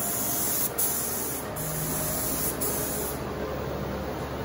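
Compressed-air primer spray gun spraying, a loud steady hiss of air and atomised primer that stops about three seconds in when the trigger is released.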